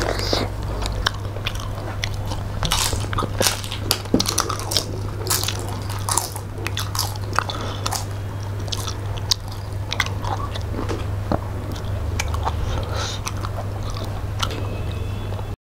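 Two people chewing and biting mouthfuls of rice and fish, with many quick sharp mouth clicks over a steady low hum. The sound cuts out abruptly near the end.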